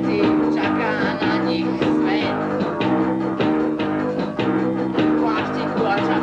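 Amateur punk band playing a guitar-and-drums passage, a guitar chord repeating in a steady rhythm under the drums, recorded lo-fi on a dictaphone.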